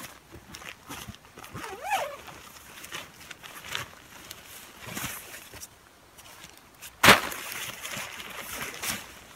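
Hands rustling and tugging at a nylon stuff sack while it is opened and reached into, with a brief squeak about two seconds in. About seven seconds in a sharp knock is followed by a couple of seconds of crinkling, as a rolled item comes out onto the plastic groundsheet.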